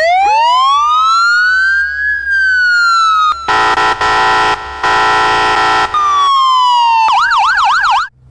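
Police siren sound effect: a wail that rises for about two seconds and falls away, two steady horn blasts, then another falling wail and a fast yelp near the end.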